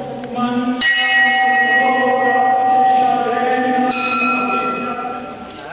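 Brass temple bell being rung, a metallic ringing of several steady tones, with fresh strikes about a second in and again about four seconds in. The ringing stops near the end.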